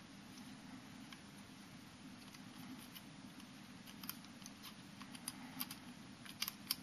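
A few light clicks and taps as a metal bearing-removal tool is turned by hand to unscrew the end of a gyroscope's frame, most of them in the second half, over a low steady hum.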